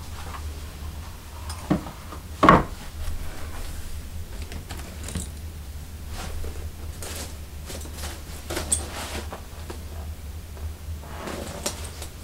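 Shoes being handled on a closet shelf: a sharp knock about two and a half seconds in, a smaller one just before it, then fainter clicks and rustling, over a steady low hum.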